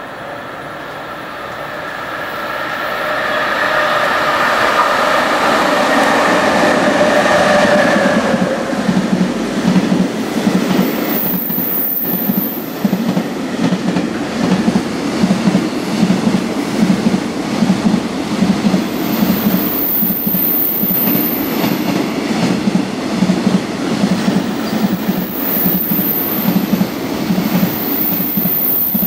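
A freight train passes at speed. First comes the electric locomotive, its traction motors whining as it draws near and goes by. Then a long rake of container wagons follows, wheels clacking in a steady rhythm over the rail joints.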